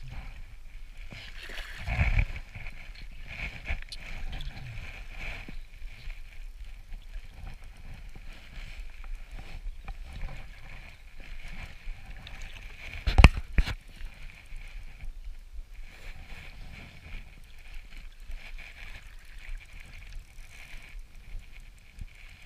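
Water sloshing and lapping around a small craft moving slowly across a lake, with a knock about two seconds in and a sharp, loud knock about thirteen seconds in.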